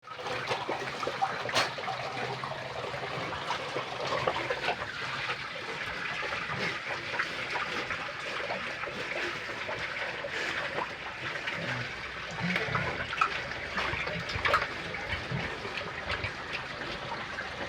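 Pigs eating wet feed: steady slurping and splashing, with scattered clicks.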